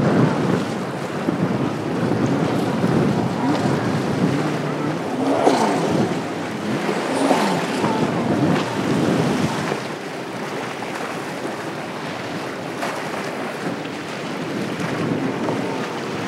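Outboard-powered center console boats running fast: engine drone mixed with the rush of spray and hull slap on choppy water, with wind buffeting the microphone. It gets somewhat quieter about ten seconds in.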